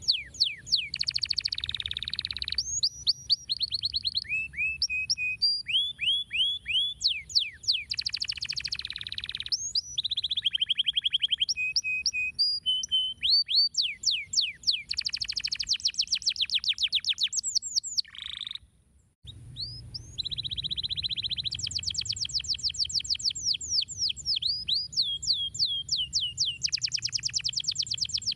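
Canary song: long runs of fast repeated falling whistled notes, each phrase a different note type, with a brief break about nineteen seconds in.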